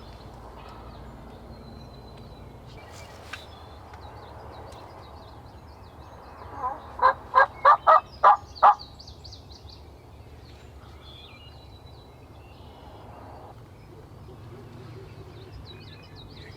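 Wild turkey gobbling once, about seven seconds in: a rapid rattling series of notes lasting about two seconds.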